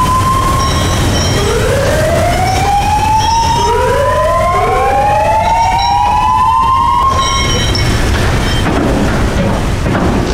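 Steelworks warning siren sounding for a ladle move: repeated rising wails that overlap one another and stop about seven seconds in, over a steady low rumble.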